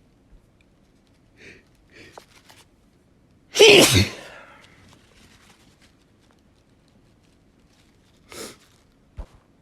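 A person sneezes once, loudly, about three and a half seconds in, after two short breaths. Another short breath comes near the end, followed by a light knock.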